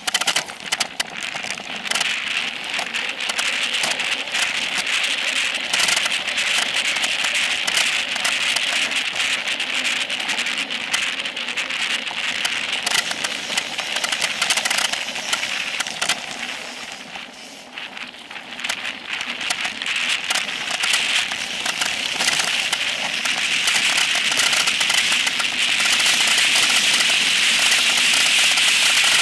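Specialized Epic Pro mountain bike descending a dirt and gravel trail at speed: the tyres crackle over loose dirt and stones while the frame and drivetrain rattle. It eases briefly a little past halfway, then grows louder and steadier over the last few seconds as the bike speeds up.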